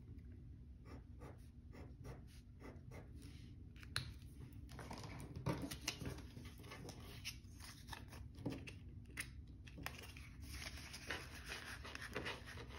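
Quiet handling noises: a pen marking a paper challenge sheet, then paper bills and a clear plastic binder envelope being handled and slid together, giving scattered small rustles and clicks that grow busier about halfway through.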